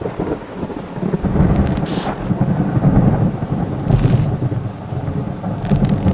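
Thunderstorm: deep thunder rumbling and rolling in swells over the steady hiss of rain.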